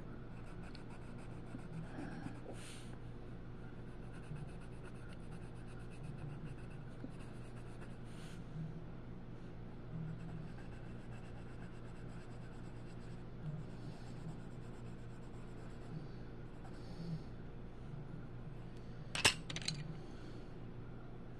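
Colored pencil scratching softly as it shades a coloring-book page, over a steady low hum. Near the end, a quick cluster of sharp knocks.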